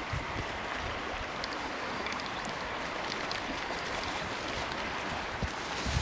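Steady rushing of a flowing river, with a few faint ticks.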